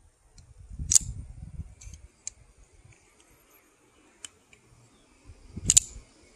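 Custom dual-action automatic wheel-release folding knife firing its blade, two loud sharp snaps about a second in and near the end, with a few faint ticks of the mechanism between.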